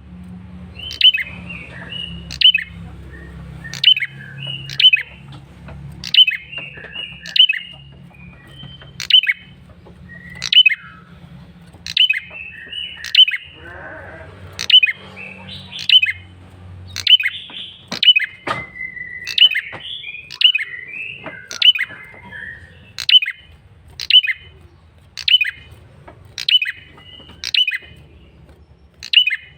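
Male prenjak kepala merah, a small songbird, calling persistently: a sharp, loud call repeated about once every second and a half, with softer twittering notes in between.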